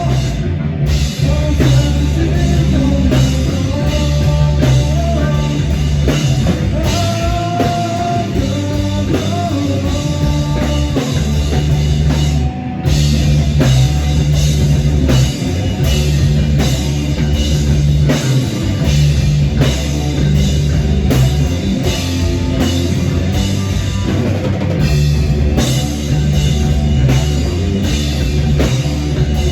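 Rock band playing live: drum kit, guitar and bass in a steady, loud groove, with a melodic line moving over the top.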